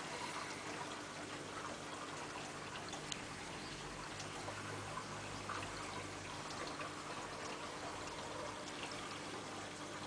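Aquarium water trickling and splashing steadily, with small drips and a faint low hum underneath.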